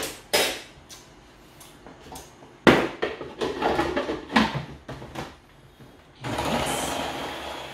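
A spoon and the plastic lid and pusher knock and click against a food processor's bowl. About six seconds in, the food processor's motor starts with a rising whine and runs steadily, blending mango into the cheesecake filling.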